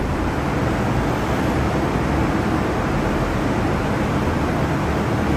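Steady rushing noise with a low hum beneath it, from a Seat Ibiza 1.9 TDI PD diesel sitting on a roller dynamometer with the dyno's cooling fan blowing at it. The level holds even throughout, with no rise in revs.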